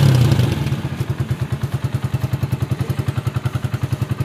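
2024 Honda CG125's air-cooled single-cylinder four-stroke engine coming down off a rev in the first half second, then idling steadily with even exhaust pulses, about eleven a second.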